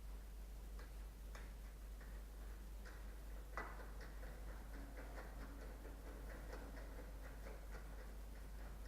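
Faint scattered clicks and taps of tools and grille parts being handled and fitted during reassembly, with a sharper knock about three and a half seconds in followed by a quicker run of small clicks.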